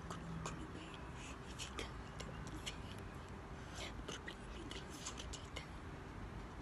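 Many small, irregular clicks and smacks, close to the microphone, from a person signing while mouthing the words: lips, breath and hands moving, with no voice.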